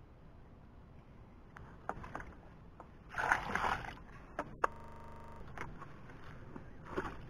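Muddy water sloshing and splashing as a plastic bucket is dipped into a dug pit and emptied, a few times: the pit is being bailed out to get at the fish. The loudest splash comes a bit over three seconds in, with a brief steady buzz just after the middle.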